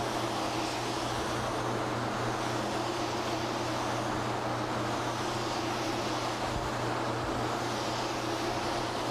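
Spray-finishing rig running steadily: a continuous rushing hiss of air from the spray gun and its air supply, with a low steady hum underneath.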